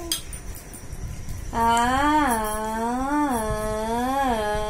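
A voice humming one long continuous tone, starting about a second and a half in, its pitch swelling up and back down about once a second.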